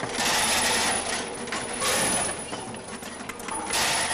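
Steel bolts clattering in loose batches as a double linear weigher discharges them down its chutes into a metal bin. There are three bursts, about two seconds apart, over the steady noise of the packing machine.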